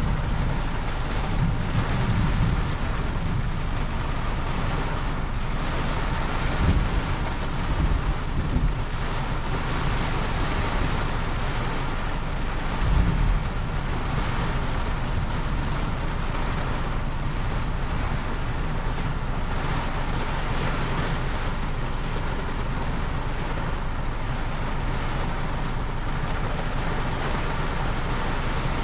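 Steady rain with a low rumble underneath, and a few brief low thumps in the first half.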